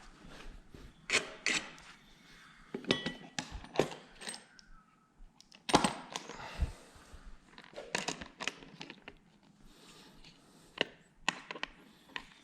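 Metal motorcycle handguard parts and hardware clinking and knocking at irregular intervals as the handguard is test-fitted against a lever whose ball end has been cut off. A few of the clinks ring briefly.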